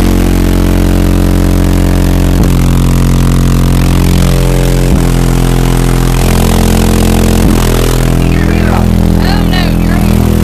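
Bass-heavy music played at very high volume through a car audio system of 24 Alpine Type R 10-inch subwoofers. The deep bass notes change about every two and a half seconds.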